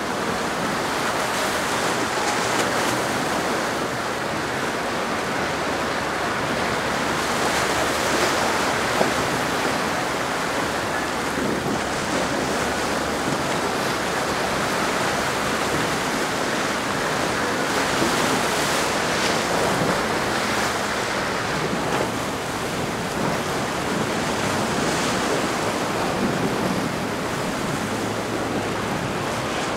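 Ocean surf breaking and rushing in rough seas, with wind buffeting the microphone. The rush swells louder a few times.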